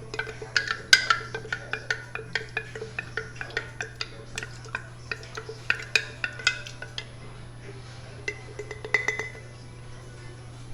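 A spoon clinking against a cooking vessel during stirring, with short ringing strikes a few times a second. The strikes thin out after about seven seconds, then come in a short flurry near nine seconds.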